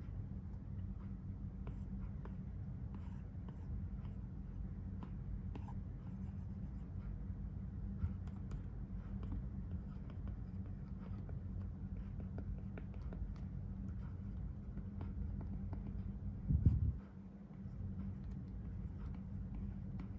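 Apple Pencil tip scratching and tapping across a matte screen protector on an iPad Pro as words are handwritten: many faint scratchy ticks over a steady low hum. One dull thump about three-quarters of the way through.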